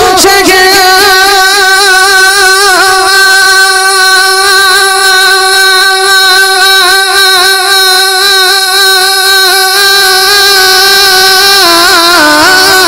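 A man singing one long, wavering held note of an Urdu naat into a microphone and loudspeaker, the note stepping down in pitch near the end.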